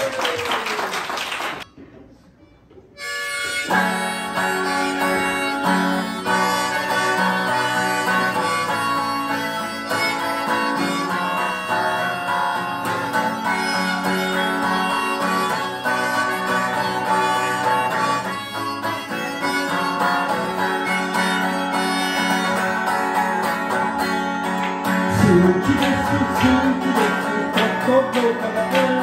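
Strummed acoustic guitar with a harmonica playing sustained melody notes over it, the instrumental opening of a song, starting about four seconds in after a short 'yay' and a brief quiet gap. A singing voice comes in near the end.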